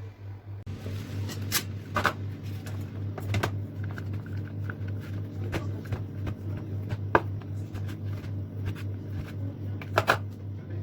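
Scattered sharp clicks and knocks, at irregular intervals, over a steady low hum.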